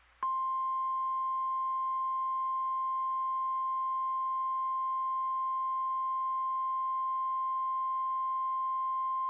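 A single steady electronic alert tone of about 1050 Hz, the NOAA Weather Radio warning alarm tone, switching on abruptly just after the start and holding at one pitch without a break. It signals that a warning, here a tornado warning, is about to be broadcast.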